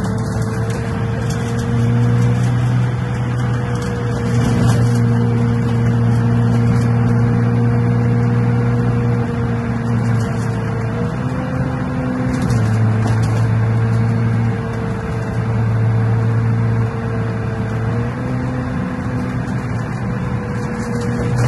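Alexander Dennis Enviro500 double-decker bus cruising on an expressway, heard from inside on the upper deck: a steady drone from the engine and drivetrain over road noise. Its pitch steps up briefly about halfway through and again near the end.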